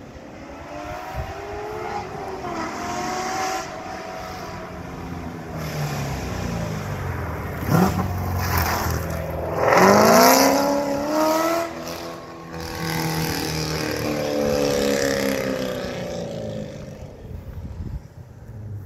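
C7 Corvette Grand Sport's 6.2-litre LT1 V8, breathing through long-tube headers and an off-road X-pipe, accelerating hard. The engine note climbs and drops several times through gear changes, is loudest about ten seconds in, then fades away.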